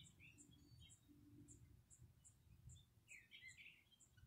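Near silence outdoors, with faint high chirps repeating evenly about two to three times a second. A short cluster of slightly lower chirps comes about three seconds in.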